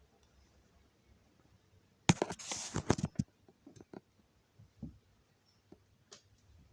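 A quick cluster of knocks and clatter with a brief hissy rustle about two seconds in, then a few lighter single knocks spaced out over the next few seconds.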